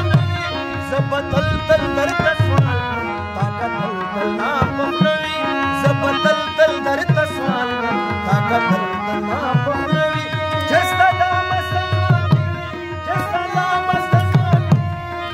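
Instrumental passage of a Pashto ghazal: harmonium and keyboard playing a melody over a tabla rhythm.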